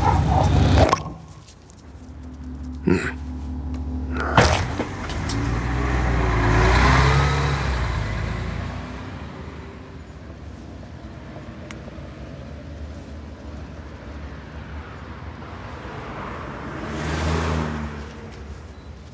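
Road traffic: a loud rush cuts off about a second in, then a vehicle's engine swells as it passes and fades into a steady low traffic hum. A second vehicle passes near the end, and two sharp clicks come early on.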